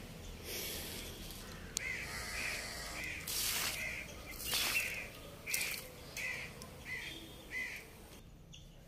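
Crows cawing repeatedly in short separate calls, about eight of them. Brief splashes of water as the tea-dust water used to season a new clay pot is tipped out onto the ground.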